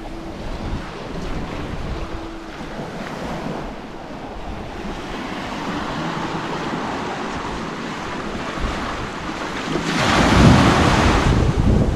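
Small waves breaking and washing up on a sandy beach, with wind buffeting the microphone. A louder rush lasts about a second near the end.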